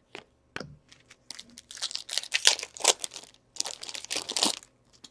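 A hockey trading-card pack's wrapper being torn open and crinkled by hand: a couple of light clicks, then two stretches of crackling, rustling wrapper noise.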